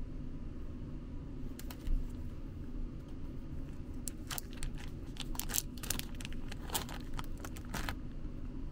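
Thin clear plastic candy wrapping crinkling and tearing in the hands: a few crackles, then a dense flurry of crackling for about four seconds.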